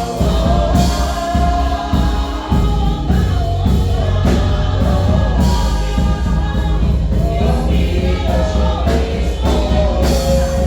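Choir singing a gospel song, several voices together over a full musical backing.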